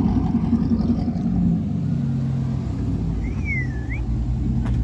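A 2012 GMC Sierra 1500 pickup's V8 running at low revs through an aftermarket exhaust, a steady deep rumble as the truck rolls slowly.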